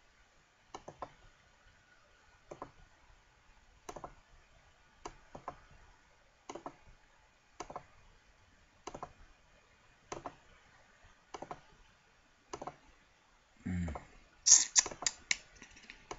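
Computer mouse clicking at a steady pace, a click or quick double click about every second, placing points on a volume automation envelope. Near the end a dull thump, then a quick run of louder clicks.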